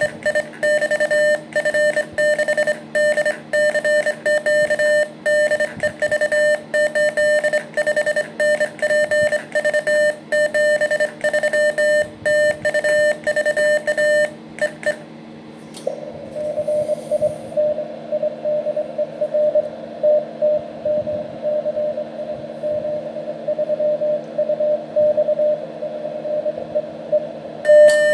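Morse code sent on a bug key: a keyed sidetone of about 600 Hz with the key's sharp clicks for roughly the first half. After a short break, a fainter Morse tone comes through the radio receiver in band hiss, the other station replying, and the clicky sending starts again at the very end.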